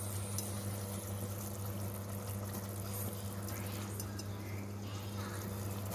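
Kofta curry sauce simmering in a pot on a gas stove, faint liquid bubbling over a steady low hum.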